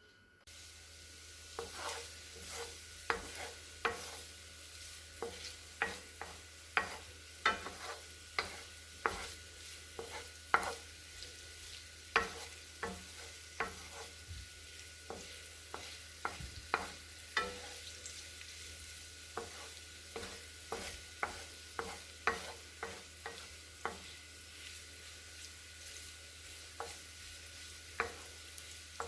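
Food sizzling in a frying pan while a utensil stirs it, clicking and knocking against the pan irregularly about once or twice a second.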